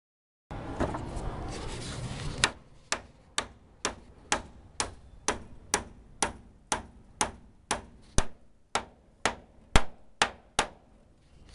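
Claw hammer driving nails into wooden roof battens, with a steady run of about eighteen blows at roughly two a second that stops near the end. A second thin batten is being nailed on top of the first to raise the sagging tile line.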